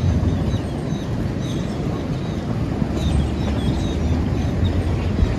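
Sugarcane train wagons rolling past on narrow-gauge track: a steady low rumble of wheels on rail. Faint short high chirps recur about every half second over it.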